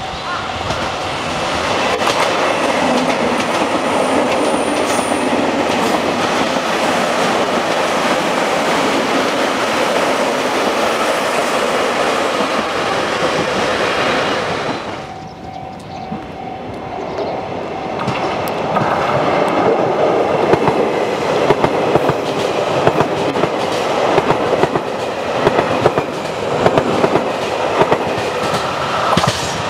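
Two JR Hokkaido electric multiple-unit trains running past, one after the other. A coupled 721 series and 731 series set passes first, its sound dropping away about halfway through. A 733 series set then comes up and passes close, its wheels clacking over the rail joints, louder near the end.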